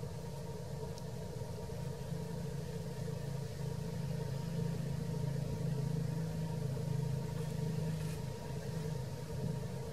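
A low, steady engine drone, like a motor vehicle running at a distance, growing louder through the middle and easing off near the end, with a faint steady whine above it.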